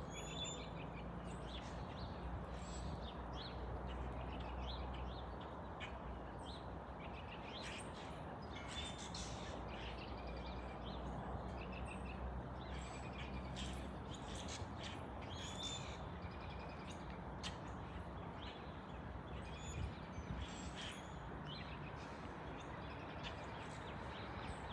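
Distant, steady low rumble of a high-flying Boeing 777 freighter's twin GE90 turbofans, easing off somewhat after about six seconds. Small birds chirp on and off over it.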